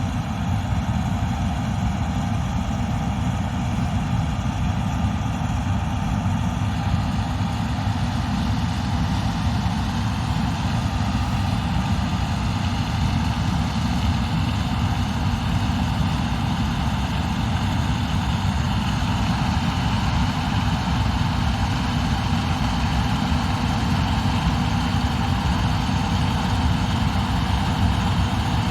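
Combine harvester running steadily while harvesting grain: a heavy diesel drone with several steady, high whining tones from its drives above it.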